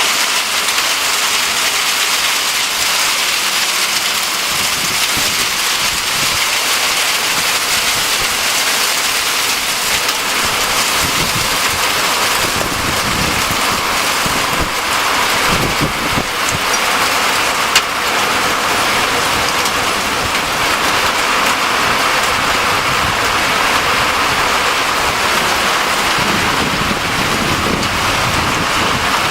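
Heavy thunderstorm rain pouring steadily, with strong wind gusts rumbling in the middle and near the end. One sharp tick a little past halfway.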